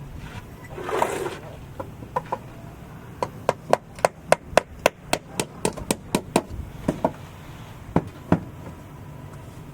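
Hammer blows on a building site: a quick run of about a dozen sharp strikes at about four a second, then three slower blows. A short scraping noise comes about a second in.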